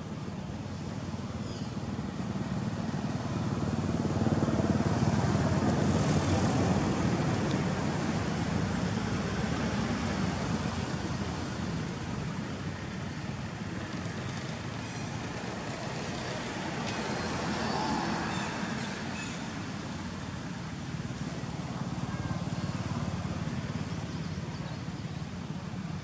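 Road traffic: the low rumble of vehicles going by, swelling to its loudest about five seconds in as one passes, with smaller swells later.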